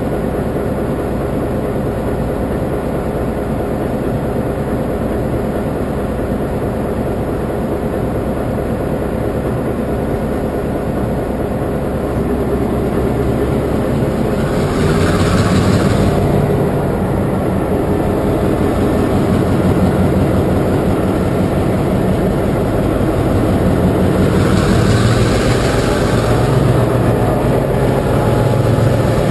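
Diesel locomotive engine running close by, steady at first. About halfway through its note deepens and grows louder with a brief rushing noise, and it rises again near the end.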